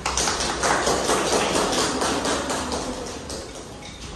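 A group of people clapping, a dense patter of hand claps that dies away near the end.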